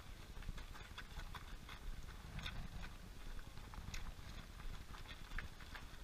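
Footsteps of many runners on an asphalt road: a dense, irregular patter of running shoes slapping the tarmac as a group jogs past.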